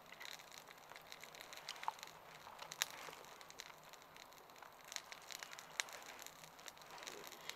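Faint campfire crackling: scattered, irregular sharp pops and clicks over a faint hiss.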